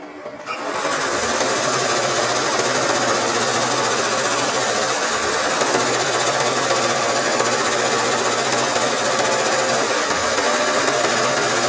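Sewing machine starting up just under a second in, then running fast and steadily, its needle stitching through hooped cloth for free-motion embroidery.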